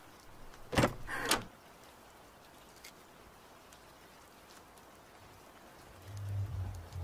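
Faint steady rain, broken about a second in by two loud bangs roughly half a second apart, with a low rumble near the end.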